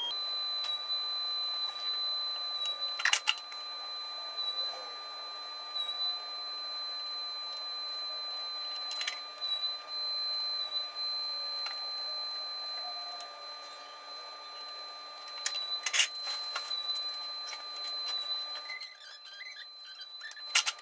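Soft background music of long held high tones. A few sharp clacks sound about three seconds in, around nine seconds and in a cluster near sixteen seconds, from a metal square, rule and pencil being set down and moved on a wooden board.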